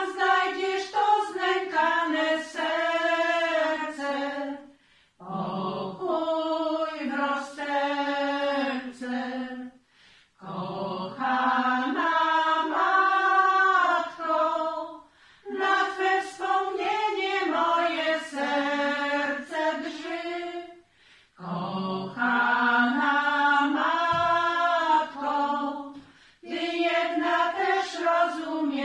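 A group of seven women singing a Polish Marian hymn a cappella, in phrases of about five seconds, each followed by a short breath pause.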